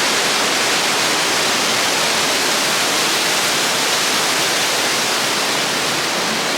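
Underground waterfall in a cave, falling water making a loud, steady rush.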